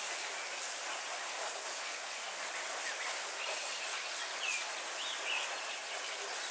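Steady heavy rain falling on leafy trees, with a few short bird chirps about halfway through.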